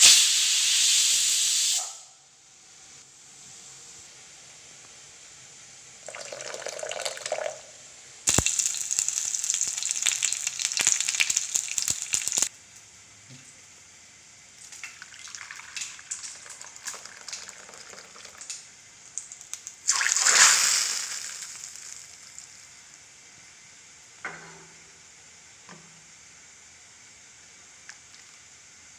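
A pressure cooker hisses out steam in loud bursts. Then liquid sambar is poured into a ceramic bowl, followed by a few light knocks.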